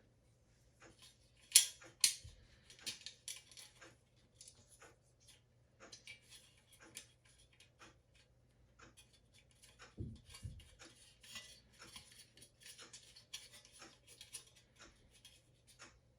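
Small clicks, taps and scrapes of bathroom exhaust fan motor parts being handled and fitted back together. There are two sharper clicks about two seconds in and two low knocks about ten seconds in.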